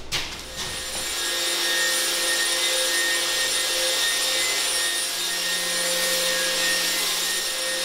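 Handheld electric fogger running, its blower giving a steady whine over a rushing hiss as it sprays a fine mist from its nozzle.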